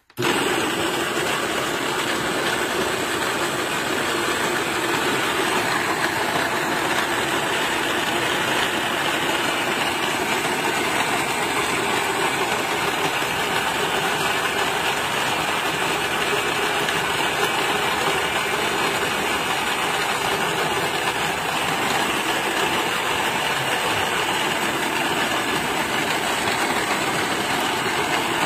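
ENZOO electric burr coffee grinder switched on and running steadily, its motor driving the burrs through a hopper of coffee beans. The sound starts at once and holds an even level throughout.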